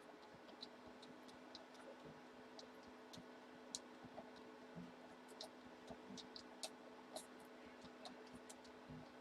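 Near silence with faint, irregular clicks from a computer mouse, over a steady low hum.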